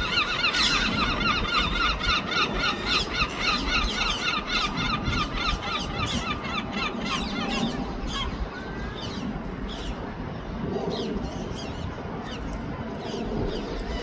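Herring gulls giving the long call: a fast, even series of loud yelping notes, about five a second, from two birds together. The series stops about seven and a half seconds in.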